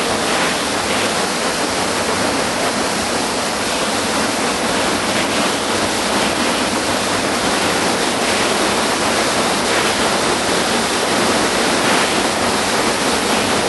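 Loud, steady rush of an underground stream or cascade in a cave passage.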